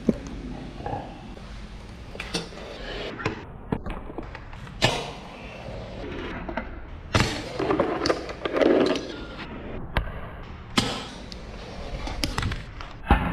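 Fingerboard tricks on a hard surface. The small wheels roll with a low rumble, broken every second or so by sharp clacks of the deck popping and landing. There is a short scraping patch about two-thirds of the way in.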